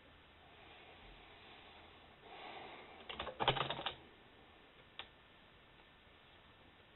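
A short burst of typing on a computer keyboard, a quick run of keystrokes about three seconds in, then a single keystroke a second later, over a low steady hiss.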